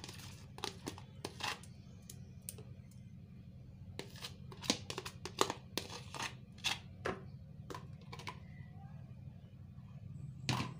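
Irregular clicks and knocks of a plastic bowl and a wooden stirring stick against a plastic bucket as a liquid soap mixture is poured in, over a steady low hum.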